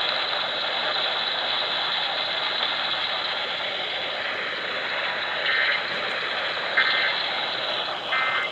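Weather radio static: a steady hiss with no voice. In the second half come three brief buzzing digital data bursts about a second and a half apart, in the pattern of EAS header codes.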